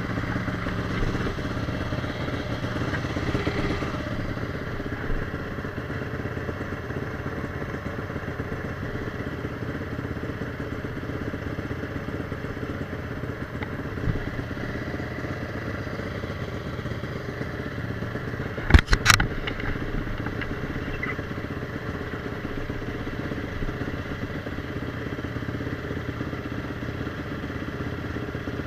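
Motorcycle engine running steadily, a little louder for the first few seconds, with two or three sharp loud knocks about two-thirds of the way through.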